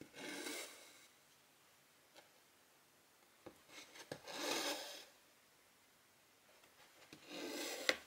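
Silk embroidery thread being drawn through cross-stitch fabric: three long pulls, each about a second, roughly three and a half seconds apart. Small sharp clicks of the needle piercing the cloth come just before the middle pull and at the end of the last one.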